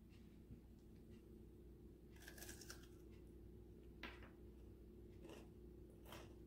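Near silence with a few faint crunches and clicks: a chocolate chip cookie being bitten and chewed.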